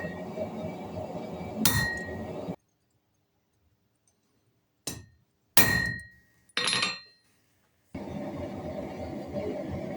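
A small piece of steel struck four times, each blow ringing with the same clear, high metallic note that dies away within about a second; the last three come close together over a dead-silent background, while a steady noise runs under the first.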